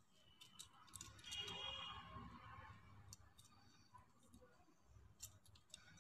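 Faint clicks of plastic beads knocking together as they are worked onto nylon line. A brief high-pitched sound comes about a second and a half in.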